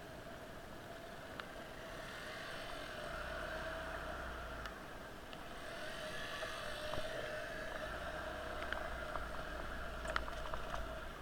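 Steady vehicle and road noise in rain, with a wavering mid-pitched hum and low rumbles coming and going; a few sharp taps near the end.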